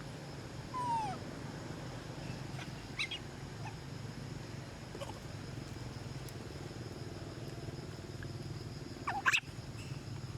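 Monkeys (macaques) giving short high squeals over a steady low background hum: a falling squeal about a second in, a faint call around three seconds, and a louder, sharper squeal near the end.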